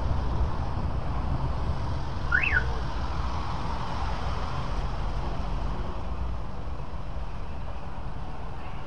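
Steady low rumble of a songthaew (open-backed pickup taxi) engine and road noise, heard from the open rear passenger bench. A short high squeak rises and falls once about two seconds in.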